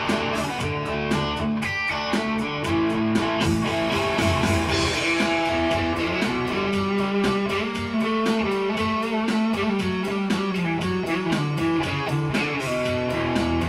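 Electric guitar played through an amplifier in an instrumental break of a rock song, with no vocals, over a steady beat that is sharpest in the first few seconds before held notes take over.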